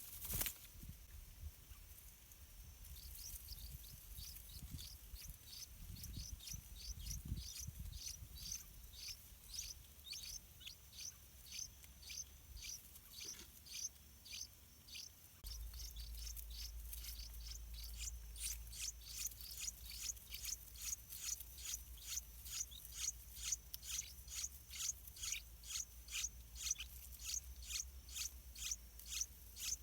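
Yellow-vented bulbul nestlings begging for food: a long run of short, high, downward-sliding calls at about two a second, getting louder and a little quicker about two-thirds of the way through.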